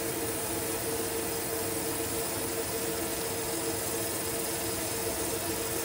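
A 100 W MOPA fiber laser running a cleanup pass over an engraved brass stamp: a steady hiss from the beam ablating soot off the metal, over a steady machine hum.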